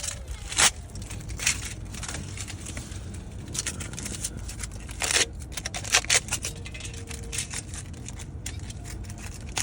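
Handling noises: scattered clicks, scrapes and crinkles over a steady low hum, with a few sharper clicks about half a second, five and six seconds in.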